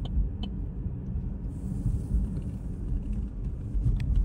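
Steady low rumble of road and engine noise heard from inside a moving car, with a few faint clicks.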